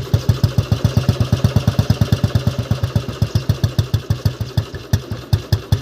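1974 Royal Enfield Bullet's single-cylinder four-stroke engine idling slowly with its even 'dug-dug' thump, through an Indori mesh-type silencer. The beats space out slightly and get quieter near the end.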